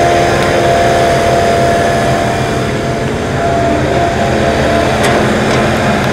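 Diesel engine of heavy earthmoving machinery at the pit, an excavator or dump truck, running steadily with a whine whose pitch shifts about halfway through.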